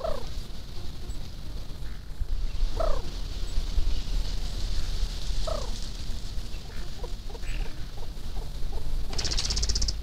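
Scaled doves calling at a drinking pool: three short coo notes that fall in pitch, about two and a half seconds apart, over a steady high hiss. Near the end comes a brief high rattling burst.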